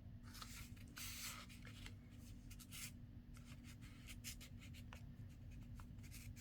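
Paper tags and inserts being handled, giving a few faint, short rustles and rubs, over a steady low hum.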